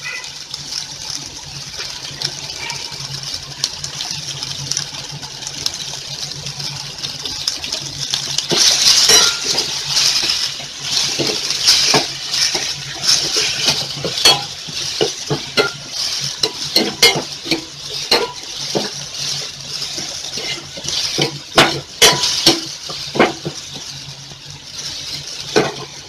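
Chopped onion, tomato and green chilli sizzling in oil in a stainless steel pot while a steel ladle stirs them, clinking and scraping against the pot; the clinks come thick and fast from about eight seconds in. A low steady hum runs underneath.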